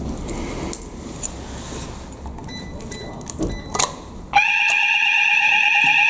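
Small clicks and rattles of a key being worked in a fire alarm call point. About four seconds in, the fire alarm sounder comes on suddenly with a loud, steady, high tone, the alarm set off for the weekly test.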